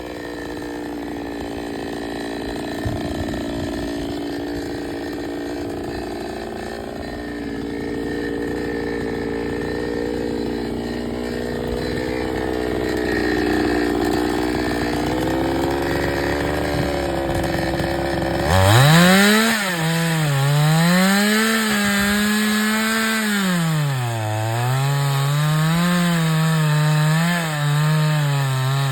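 Two-stroke chainsaw running while cutting a fallen plum branch. About two-thirds of the way through it suddenly gets louder, and its engine pitch rises and falls over and over as the chain bites into the wood.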